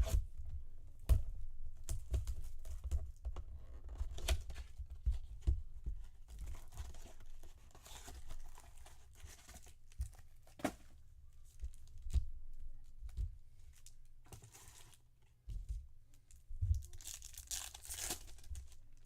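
Hands tearing open a cardboard baseball card box and its sealed card packs: repeated tearing and crinkling of cardboard and wrappers, with sharp clicks and low thumps as the box and cards are handled.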